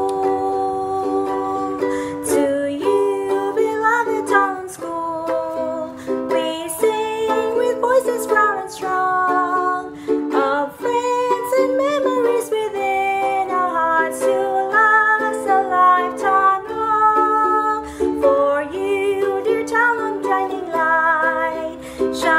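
A woman sings a school song solo in English, accompanying herself by strumming a ukulele.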